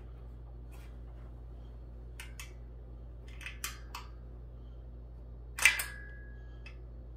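Scattered metallic clicks and taps of an Allen wrench on a steel desk leg frame as a screw is tightened, with one louder clink near the end that rings briefly.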